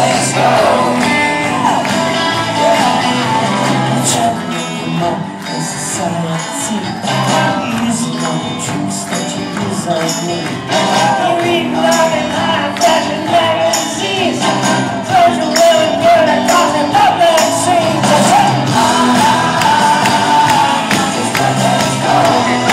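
Live rock band playing with a lead singer over drums and guitars, with tambourine, heard from deep in the audience of a large hall, with shouts from the crowd.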